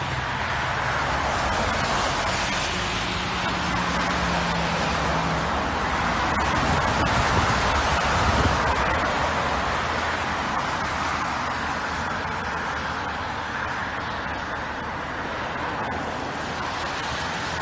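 Cars passing on a wet road: tyres hissing through water, with a low engine hum in the first few seconds.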